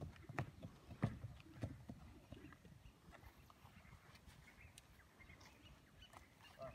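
Horse's hooves thudding on a sand arena in an even trot rhythm, about one and a half beats a second. The beats stop about two and a half seconds in as the horse halts and stands.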